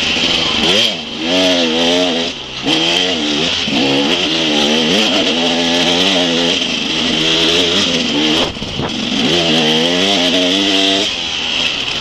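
KTM EXC 250 enduro motorcycle engine revving up and down hard under load, heard close from on the bike. The throttle is chopped briefly about a second in, again at about two and a half seconds and near eight and a half seconds, then it picks up again.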